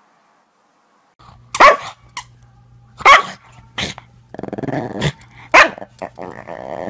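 A dog barking loudly, starting about a second in, about four sharp barks with growling in between.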